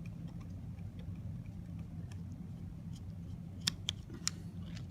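Small plastic and glass spray chamber parts being handled: faint light ticks, then three sharper clicks in quick succession a little past halfway, over a steady low hum.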